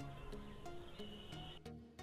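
Quiet background music with held notes.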